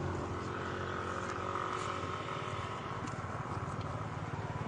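A motor vehicle's engine running steadily, its regular throb growing louder near the end.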